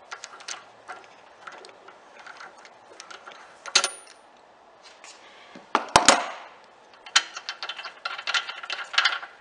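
Metal clinks and clicks of hand tools on a Tecumseh engine's cylinder head as the spark plug wire is pulled off and the spark plug is loosened with a wrench. A sharp double knock comes about six seconds in, and a run of quick clicks near the end.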